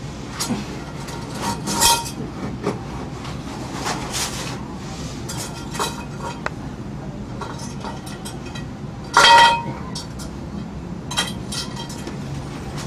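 Scattered clinks and knocks of small hard objects being handled on the wooden floorboards of a small boat, some with a brief ring. The loudest clatter comes about nine seconds in, over a steady low rumble.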